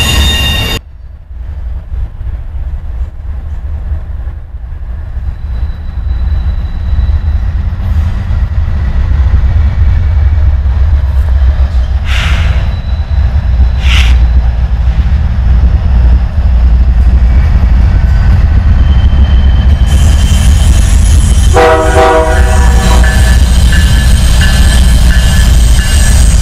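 Opens with the end of steady train-wheel squeal that cuts off abruptly. A diesel freight train then approaches: a low locomotive rumble that grows steadily louder, with a short horn blast about 22 seconds in, and the cars rolling past with wheel noise and squealing near the end.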